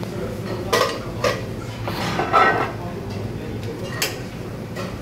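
A utensil knocking and scraping against a nonstick frying pan while sliced onion, peppers and mushrooms are stir-fried: a handful of short sharp clinks, the busiest about two seconds in, over a steady low hum.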